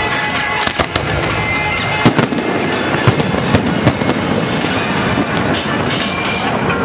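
Aerial fireworks bursting: a dense run of bangs and crackling, with the loudest bangs about two, three and three and a half seconds in.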